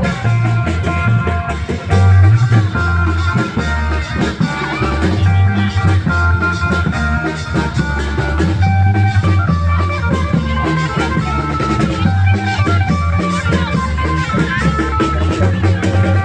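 Isan klong yao long-drum band playing: a driving beat of drums and cymbals under a strong bass line and a lead melody of short plucked notes.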